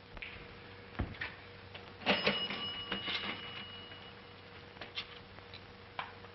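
Film sound of handling at a counter: a dull thump, then a clatter with a thin bell-like ring held for about two seconds, followed by scattered light knocks.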